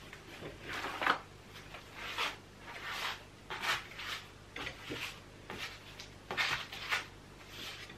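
Hand spreader scraping tile adhesive out of a bucket and spreading it across a wall in a series of short scraping strokes, roughly one a second.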